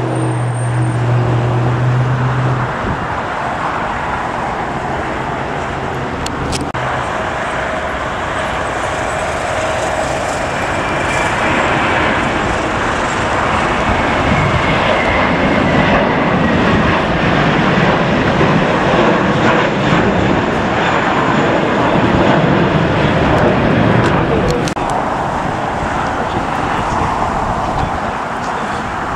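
Jet airliner engines giving a steady, loud roar during a takeoff, mixed with general airport noise. In the first couple of seconds a low hum drops in pitch and then holds.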